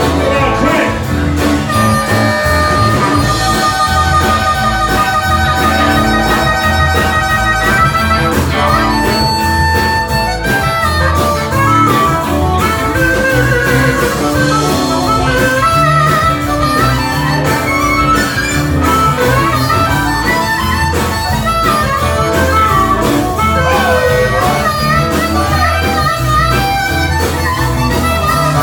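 Diatonic harmonica playing lead with a live country-blues band behind it, with guitar and a steady bass line. The harmonica holds long notes in the first several seconds, then plays bending, wavering phrases.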